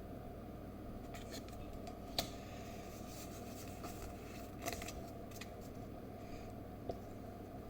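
A Pokémon card booster pack being opened and handled: light crinkles, snaps and sharp clicks of the foil wrapper and cards, the loudest about two, four and a half and seven seconds in, over a steady low hum.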